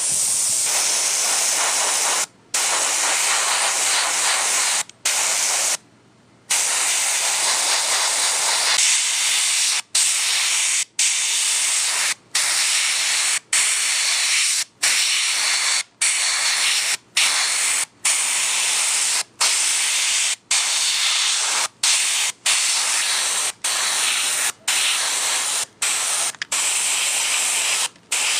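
Gravity-feed airbrush spraying paint at about 27 psi: a steady hiss of air and paint, cut off briefly and sharply about twenty times, roughly once a second in the second half, as the trigger is let go between passes.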